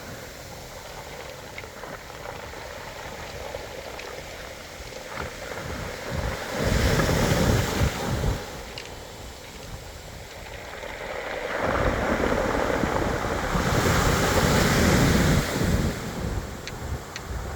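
Sea waves surging onto a pebble beach, swelling twice and falling away, with wind buffeting the microphone during the surges. A few small clicks come near the end.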